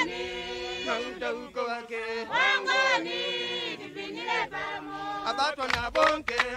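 Chanted song by a group of voices singing long held, bending notes with no backing, joined by sharp percussive beats about five and a half seconds in.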